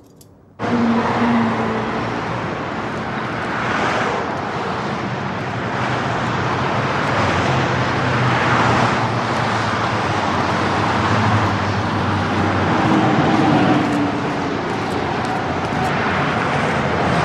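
Road traffic: a steady wash of car tyres and engines, swelling as vehicles pass every few seconds. It starts abruptly about half a second in.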